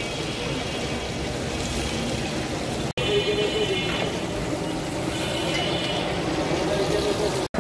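Chicken pieces deep-frying in a wide pan of hot oil, the oil sizzling steadily, with street traffic noise around. The sound cuts out for an instant about three seconds in and again near the end.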